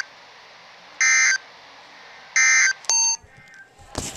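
NOAA Weather Radio's SAME digital end-of-message bursts sounding through a radio speaker: two short, loud, buzzy data bursts about 1.4 s apart that close the Required Weekly Test. About 3 s in comes a shorter beep of a different pitch, and near the end a brief clatter.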